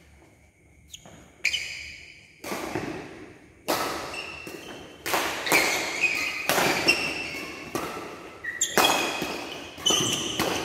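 Badminton doubles rally: about a dozen sharp racket hits on the shuttlecock, the first about a second and a half in and coming faster from about halfway, echoing in a large hall. High ringing squeaks follow many of the hits.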